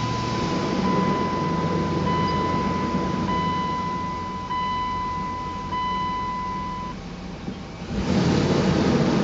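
A 4.7 L V8 in a Dodge Durango idling just after starting, while a dashboard warning chime sounds as a steady beeping tone for about seven seconds and then stops. Near the end a louder rushing noise comes up over the idle.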